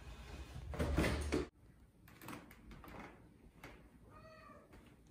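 A cat scrabbling on a wooden ballet barre, the cloth draped over it rustling, loudest about a second in and cutting off suddenly. A few seconds later comes a single short meow.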